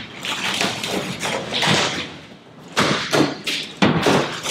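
Aluminium boat hull being tipped up onto its edge by hand: a string of irregular knocks and thuds with short scraping noises as the metal hull shifts and bumps.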